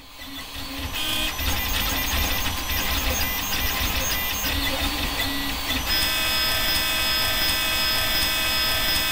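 3D printer running: its stepper motors sound in short changing tones and clicks as the print head moves, over a steady hum. About six seconds in, it settles into a steady high whine of several tones.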